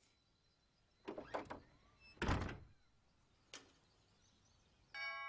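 A front door shutting: a few light knocks about a second in, then one loud thud as it closes about two seconds in, followed by a faint click. Near the end a doorbell starts chiming.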